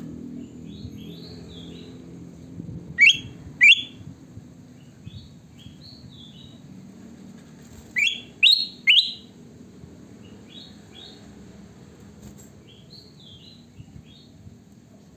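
A bulbul (kutilang emas) singing in short, repeated warbled phrases. It gives five loud, sharp notes: two about three seconds in and three more around eight seconds in.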